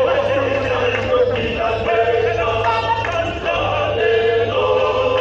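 A choir singing, the voices holding long notes over a steady low drone.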